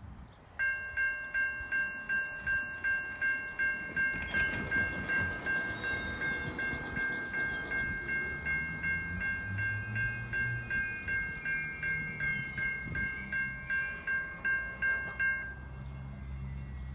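Railroad grade crossing bell ringing steadily at about two strokes a second, then stopping near the end. About four seconds in, the rushing wheel and rail noise of an approaching passenger train joins it.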